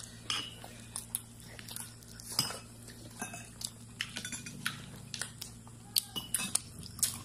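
Close-up eating sounds from fried chicken eaten by hand: scattered sharp clicks and crackles as the crispy skin is torn and chewed, with light taps and clinks against a plate, over a steady low hum.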